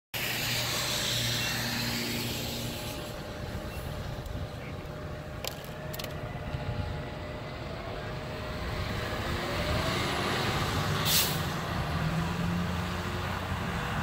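Fire truck's diesel engine running and its tyres hissing on wet pavement as it pulls out and drives away, the engine rising in pitch as it accelerates. A short sharp hiss about eleven seconds in.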